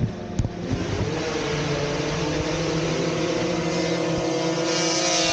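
Racing snowmobile engine climbing in pitch about a second in, then running flat out at high revs, growing louder near the end. A couple of short clicks right at the start.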